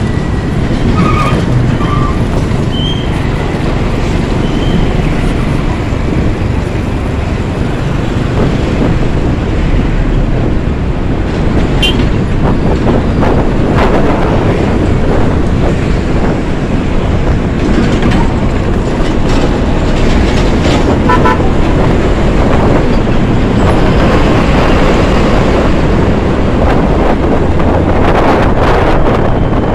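Riding on a Honda BeAT scooter through heavy truck traffic: a steady roar of wind, road and engine noise, with a few short horn toots near the start and again about two-thirds of the way through.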